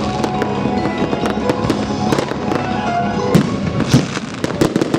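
Fireworks going off in quick succession, a dense run of sharp cracks and bangs.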